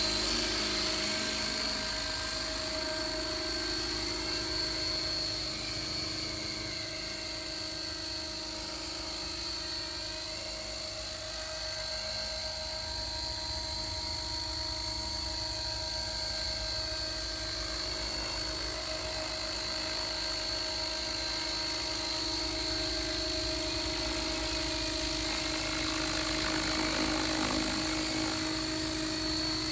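Radio-controlled scale Gazelle helicopter on T-Rex 600 mechanics in flight: the rotor drive and fenestron tail fan keep up a steady, high, layered whine over a hiss. It grows a little louder and softer as the model moves nearer and farther.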